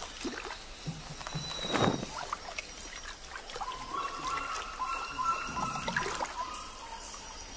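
Rainforest ambience with scattered rustles and clicks and a faint trickle of water. About four seconds in, an animal call holds a steady high tone for about two seconds.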